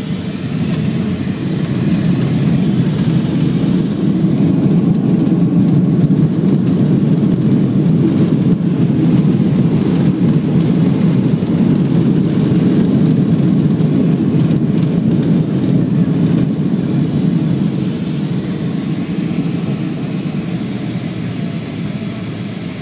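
A Boeing 737-300's CFM56-3 turbofan engines in reverse thrust during the landing rollout, heard inside the cabin beside the wing. A loud, low roar builds over the first few seconds, holds steady, then eases off toward the end as the thrust comes back.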